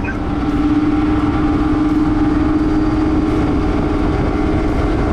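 Outboard motors of a twin-engine fishing boat running steadily under way, a steady engine drone with a low rumble.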